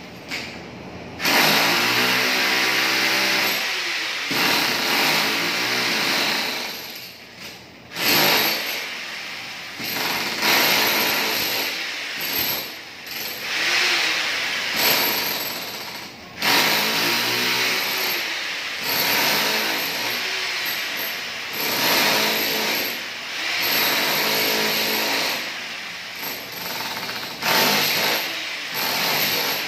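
Corded electric demolition hammer chiseling old ceramic floor tiles off a concrete floor. It hammers in runs of a few seconds with brief pauses between, and its pitch sags and recovers as the chisel bites.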